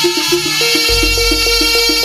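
Traditional Javanese jaranan ensemble music playing live: quick, even pitched percussion strokes about five a second under a sustained high tone, with a deep low note coming in about a second in.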